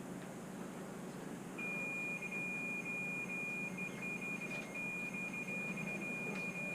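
An electronic device's high, steady alarm tone starts about a second and a half in and holds, stuttering briefly now and then, over a faint steady hum.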